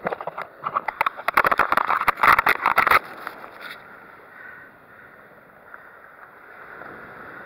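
Close camera-handling noise: quick clicks and rustles for about three seconds, stopping suddenly, then a steady low hiss.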